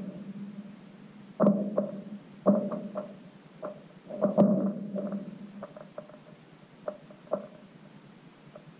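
Lake ice cracking: a dozen or so sharp cracks and pings, the loudest about a second and a half, two and a half and four and a half seconds in, with fainter ones later, over a steady low hum.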